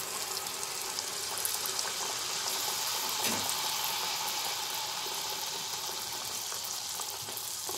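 Malpua batter deep-frying in hot oil: a steady sizzle with fine crackling as the ladled batter bubbles and puffs up. A brief soft knock about three seconds in.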